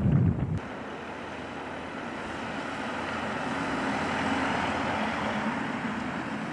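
A car driving past on the road: its tyre and engine noise swells to a peak about four to five seconds in and then fades as it moves away. No siren. A low wind rumble on the microphone cuts off abruptly about half a second in.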